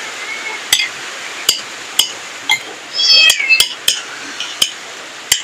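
A cat meowing: a falling call trailing off at the start and a longer falling meow about three seconds in. A spoon clicks sharply against a plate several times in between.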